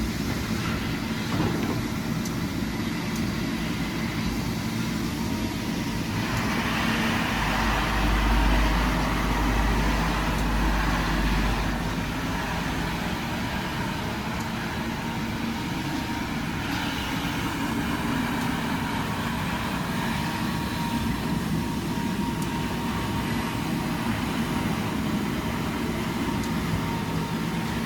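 XD20QL walk-behind wet floor scrubber running with a steady motor drone. A rushing, hissing noise swells in about six seconds in and drops away about seventeen seconds in, and a deep rumble is loudest for a few seconds in the middle.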